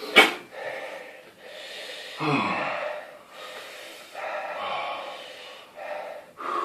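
A man breathing hard through the mouth against a superhot chilli's burn: a sharp loud gasp at the start, then several long, heavy breaths in and out.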